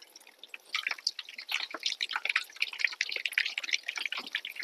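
Small balls of donut dough dropped one by one into hot frying oil at about 180 °C, the oil sizzling and crackling around them. The crackle starts about a second in and then stays dense as more pieces go in.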